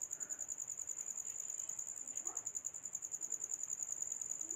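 A cricket trilling steadily in the background, a high, even, rapidly pulsing chirp that does not let up.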